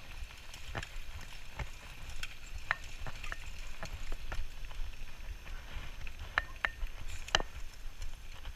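Bicycle rolling over bumpy dry grass: a low rumble with irregular crackling clicks and rattles.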